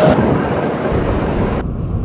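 RETECH RTAS 85AB runway sweeper truck running, a loud steady rumble; about one and a half seconds in the sound turns suddenly duller.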